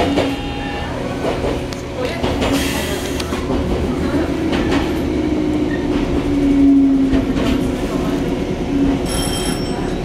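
Running sound of a JNR 123 series electric railcar heard from inside the car: a steady rumble of wheels and running gear with a wavering motor-like tone. A brief high-pitched squeal sounds just after the start and again about nine seconds in.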